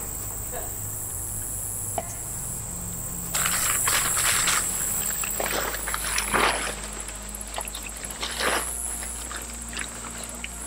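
Crickets and other evening insects chirping in a steady high, pulsing chorus. Bursts of rustling from tent fabric being unfolded and spread on the grass come about three and a half seconds in, again around six seconds, and near eight and a half seconds.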